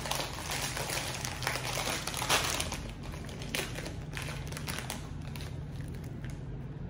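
A plastic snack bag of cheese curls being pulled open and crinkled in the hands. The crackling is dense for the first three seconds or so, then thins to fainter, scattered crackles.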